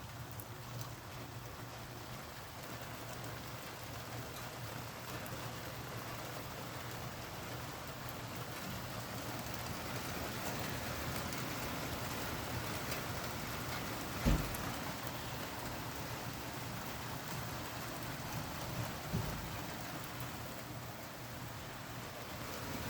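Steady rain falling, a continuous hiss of drops on surfaces that grows slightly heavier toward the middle. A brief low thump comes about two-thirds of the way through.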